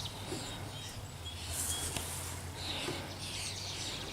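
Small birds chirping in short bursts, several times, over a steady low hum.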